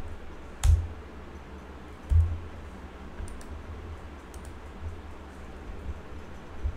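Typing on a computer keyboard and mouse clicks: a sharp click under a second in, a dull thump about two seconds in, then scattered faint key taps.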